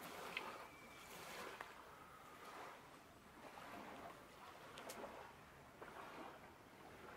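Faint, quiet lakeside ambience: small waves lapping at the shore in slow swells, with a few light clicks.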